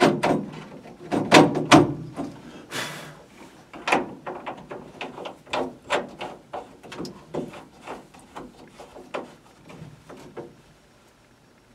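Hand-handling noises from fitting a switch and its spacer into a steel dashboard: irregular clicks, knocks and light rattles of metal and plastic parts and wire connectors. They are loudest at the start and thin out, going quiet near the end.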